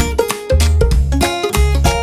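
Background music: plucked guitar-like notes over a bass that pulses about twice a second.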